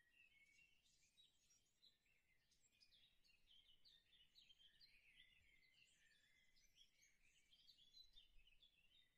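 Near silence, with faint, busy high-pitched chirping throughout.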